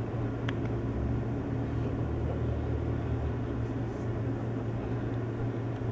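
Steady low hum under a constant background rush, with no distinct events standing out.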